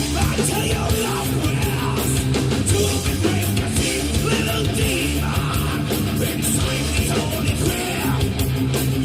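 A live heavy rock band playing at full volume: distorted electric guitars, bass and drums, loud, dense and unbroken.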